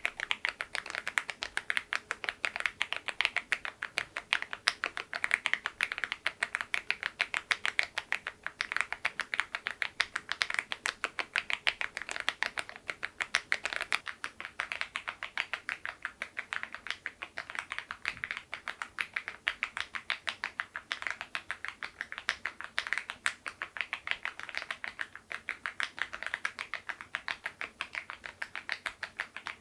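Mechanical keyboard with LEOBOG Grey Wood switches and KEYTOK very-low-profile keycaps being typed on steadily: a fast, continuous stream of key clacks.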